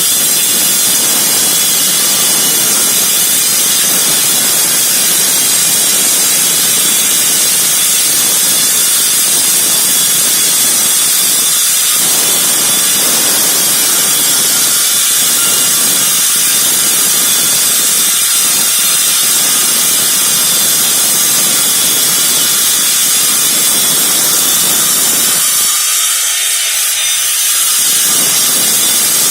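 Husqvarna K4000 Cut-n-Break electric power cutter cutting into a concrete slab: a loud, steady, high-pitched grinding. About 26 seconds in, the lower part of the sound briefly drops away as the load on the blade eases, then comes back.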